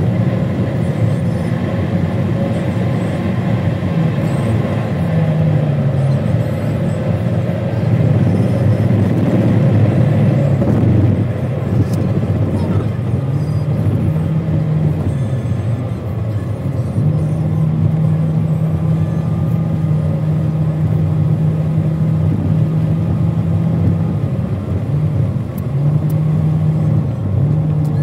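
Steady engine and road noise heard from inside a car driving through a road tunnel, with a low drone that shifts in pitch now and then.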